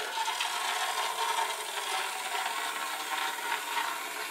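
Small DC motors of a D2-6 kit robot car running steadily, a whir from its motors and wheels as it drives round in circles on a tiled floor.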